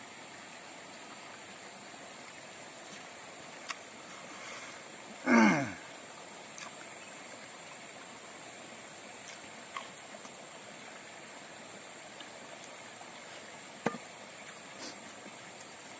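A steady hiss, with a few faint sharp clicks from the man eating by hand. About five seconds in, a short, loud vocal sound from the man that falls steeply in pitch.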